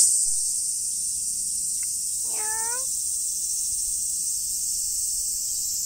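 A steady, high chorus of insects, with one short, rising meow from a tabby cat about two and a half seconds in.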